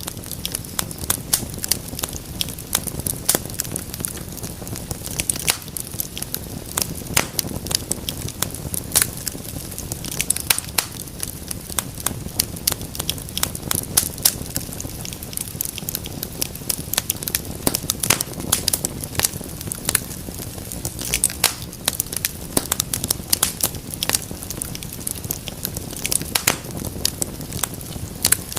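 Fire crackling in a fireplace: many irregular sharp pops and snaps over a steady low rush of flames.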